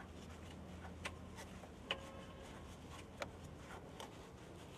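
A few faint clicks and ticks as a hand twists a plastic oil filler cap loose on an auto-rickshaw engine.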